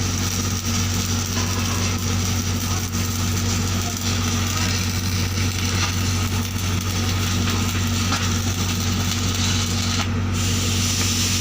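TIG welding arc on steel pipe, running steadily with a low mains-frequency buzz and a hiss that strengthens near the end.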